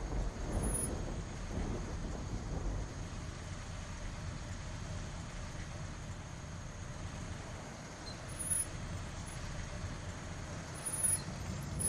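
A car's engine running low as the car rolls slowly up the street and comes to a stop, with a couple of short louder sounds near the end.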